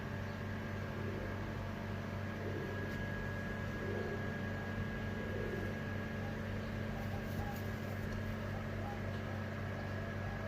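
Steady mechanical hum with a constant high-pitched whine over it, like a small motor or fan running.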